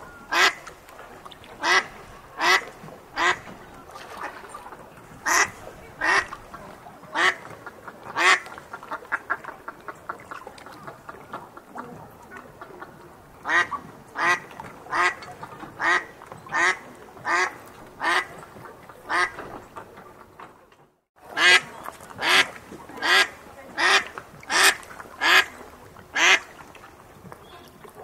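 A duck quacking over and over, loud single quacks about one a second. The sound cuts out for a moment about three quarters of the way through.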